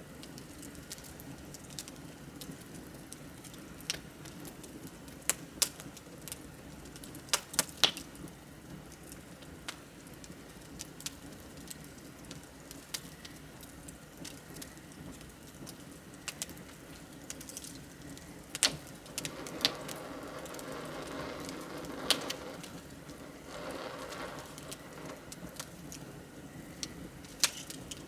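Wood bonfire crackling, with irregular sharp pops and snaps over a steady low rush of burning. About two-thirds of the way in, the flames swell into a louder hissing rush for several seconds.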